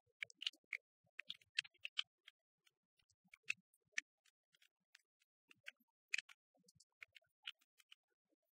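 Sparse, irregular faint clicks and crackles over near silence: the surface noise of a worn film print's soundtrack.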